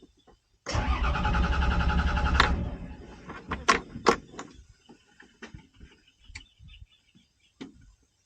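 Small single-cylinder 'dompeng' diesel engine chugging loudly for about two seconds, then dying away. Scattered clicks and knocks follow.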